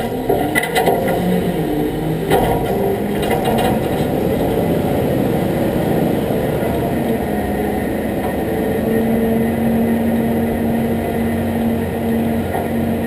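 Truck engine running as the truck rolls slowly, with a few rattling knocks in the first few seconds and a steady low hum that stands out more in the second half.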